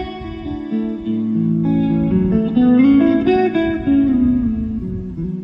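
Background music on guitar: plucked notes in a melodic line, stepping up and then back down through the middle.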